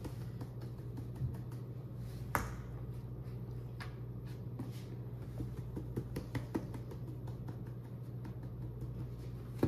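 Scattered light clicks and taps of a plastic seasoning shaker bottle being shaken, set down and picked up, and of fish steaks being moved about on a plastic cutting board, over a steady low hum. The sharpest click comes about two and a half seconds in, with a small run of taps a little past the middle.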